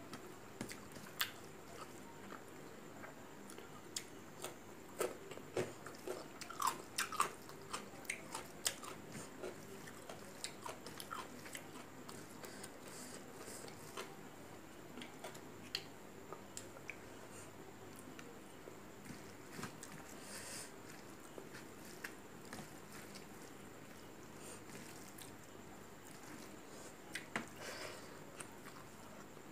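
Close-up eating sounds of a person chewing rice and curry eaten by hand: many short wet clicks and smacks from the mouth. They come thickest in the first ten seconds, thin out, and pick up again near the end.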